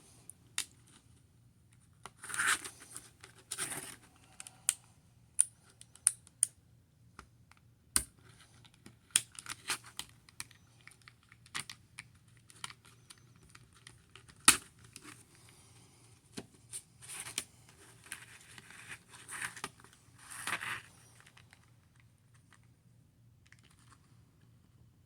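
A knife cutting and prying a pocket knife out of its retail packaging: irregular clicks and snaps with short crinkling and tearing sounds, the sharpest snap about halfway through.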